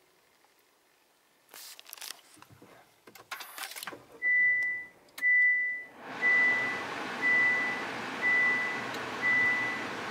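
2021 Honda Accord's cabin chime beeping at one high pitch: two longer beeps, then short beeps about once a second, the seat-belt reminder. About six seconds in, as the car is switched on, a steady rushing noise comes on under the beeps. A few light clicks come before the beeps.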